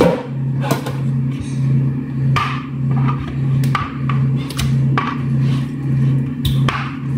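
Metal kitchen tongs clicking and knocking as marinated chicken pieces are lifted from a plastic bowl onto the cooking pan, a sharp clack every second or so, over a steady low hum.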